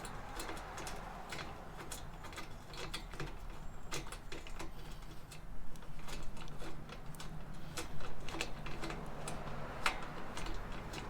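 Irregular light metallic clicks and taps as bolts are fitted by hand through a fog light's mounting bracket into rivet nuts, with a faint steady hum underneath.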